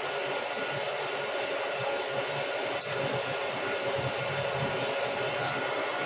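Milling machine boring a 1-inch hole into a steel ball-peen hammer head with an oiled drill bit, a steady cutting and spindle sound with a faint squeal. Three brief sharp ticks break through it, the first about half a second in, another near the middle and one near the end.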